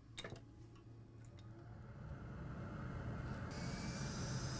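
A few light clicks in the first second or so, then a steady rushing hiss that grows gradually louder.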